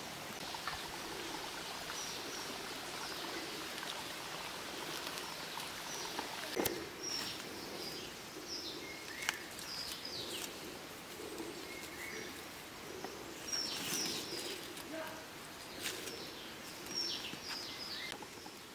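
Quiet outdoor ambience with scattered short, high bird chirps and a few faint clicks.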